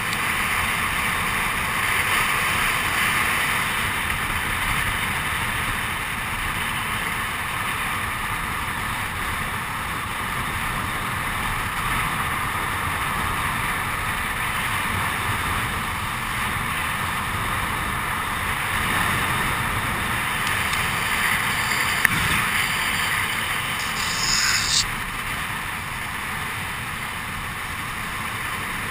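Steady rush of wind over the microphone and the rumble of longboard wheels rolling fast on asphalt during a downhill run, with a single sharp click and, a couple of seconds later, a brief louder burst of noise.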